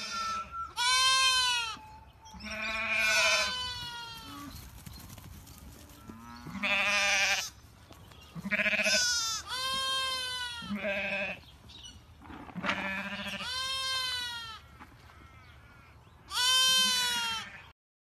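Sheep bleating repeatedly: about ten wavering calls, one to three seconds apart.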